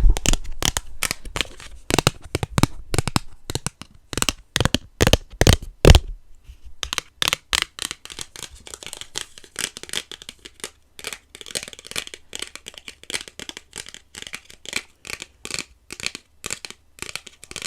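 Packaging being handled close up, crinkled and torn: loud separate snaps and crackles for the first few seconds, then quieter, fine, steady crackling.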